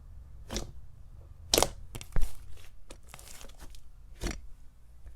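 Crunchy 'shaved ice' slime (white-glue slime layered with thick glossy slime) being squished and stretched by hand: a handful of sharp crackles and pops, with quieter crinkling between them.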